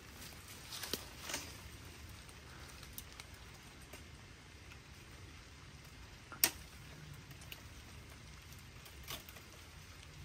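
A few sharp clicks and knocks of hands and gear on a metal ladder stand strapped to a tree, the loudest about six and a half seconds in, over a low steady rumble.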